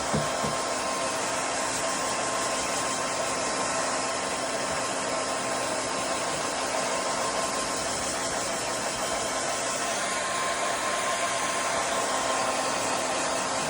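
Blow dryer running steadily: a constant rush of air with a faint steady whine.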